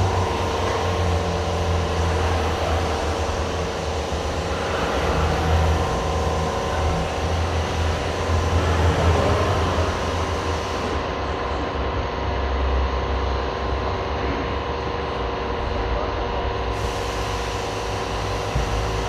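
Car accessories shop ambience: a steady low machine hum with a few constant tones over a general background din. The hum keeps an even level, with no sudden events.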